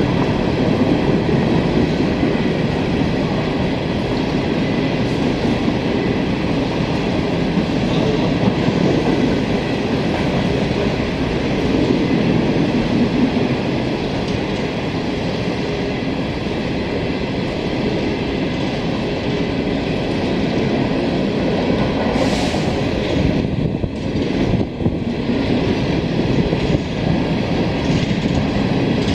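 Norfolk Southern freight train rolling past, its cars' wheels running over the rails in a steady, loud rumble that dips briefly a little after two-thirds of the way through.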